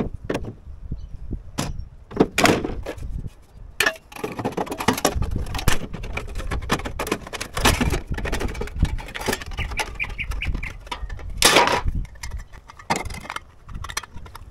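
Hand tin snips cutting thin sheet metal for a rain head: a run of irregular crunching snips and metallic clicks, with a few sharper clacks as the metal pieces are handled.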